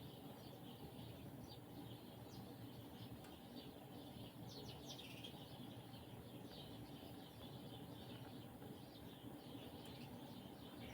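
Faint chirping of small birds: short, high chirps scattered throughout, busiest about four to five seconds in, over a low steady background hiss.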